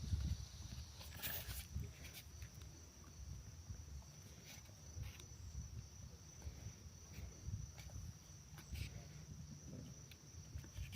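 Outdoor ambience: a steady high insect drone, like crickets, over an uneven low rumble, with a few scattered faint clicks.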